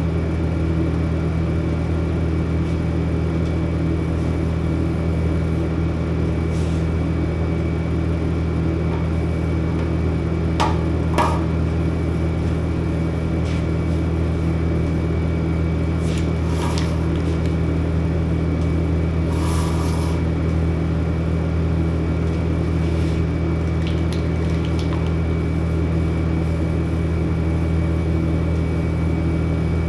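A steady low machine hum, like an electric motor or fan running, with a few short clicks and knocks about a third of the way in and a couple more past the middle.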